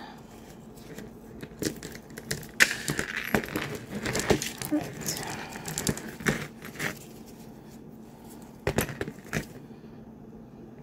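Tangled jewelry, a beaded necklace among it, clinking and jangling as it is pulled apart by hand. The clicks come thick for a few seconds, then stop, with a short burst again near the end.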